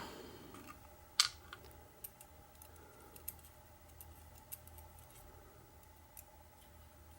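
Small metal clicks and faint ticks of a tool working at the pin chambers of a Medeco lock cylinder, digging a pin out; one sharper click about a second in, then scattered light ticks.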